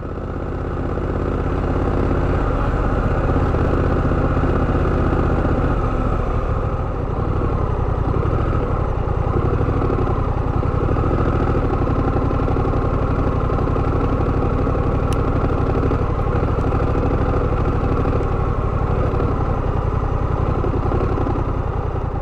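Honda Rebel 1100's parallel-twin engine running steadily, with its firing pulses as a fast, even throb. It rises in over the first second or two and then holds level.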